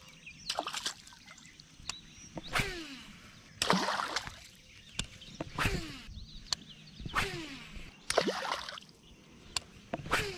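A topwater bass lure working across a pond surface, with about six splashes at uneven spacing of one to two seconds. Each splash has a short falling sweep, and faint clicks come between them.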